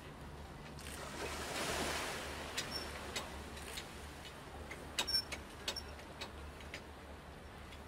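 Small waves washing onto the foot of a concrete harbour slipway, one surging up about two seconds in. Scattered light clicks and clanks come through in the middle, over a steady low hum.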